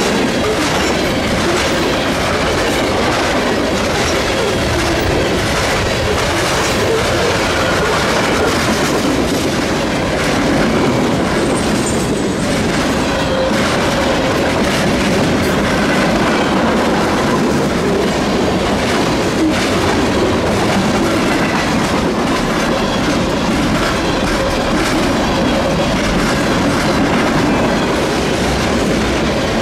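Freight train cars rolling past, steel wheels clattering steadily over the rails.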